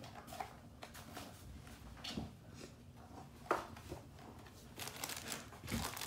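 Faint, scattered scuffs, taps and rustles of kittens moving about in a cardboard pizza box and on a plush toy pizza.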